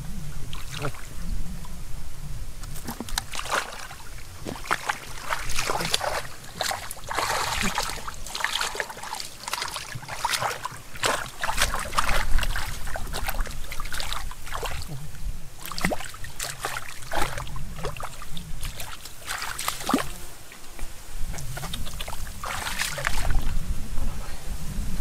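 Hands groping and splashing in shallow muddy water: irregular wet splashes and squelches, some sharp, over a low steady rumble.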